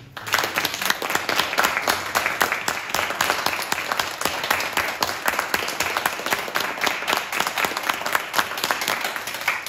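Audience applauding: dense, steady clapping from a small crowd that starts abruptly and keeps going at an even level throughout.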